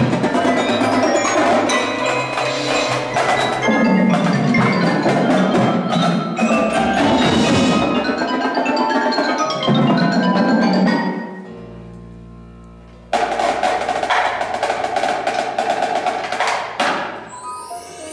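Indoor percussion ensemble playing: marimbas and other mallet keyboards with drums, many quick struck notes and accents. About eleven seconds in the music falls away to a fading low held note, then the full ensemble comes back in suddenly about two seconds later.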